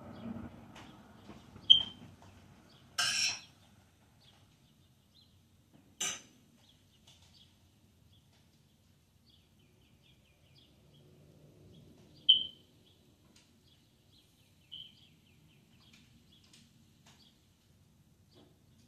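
Small outdoor birds chirping and twittering, with a few loud, sharp single chirps standing out and a brief harsh rasp about three seconds in. A faint low rumble of a passing car fades in the first couple of seconds.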